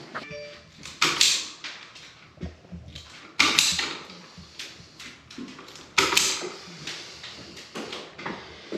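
Clattering from objects being handled: a run of sharp knocks and short rattles, three louder ones about two and a half seconds apart, with lighter clicks between.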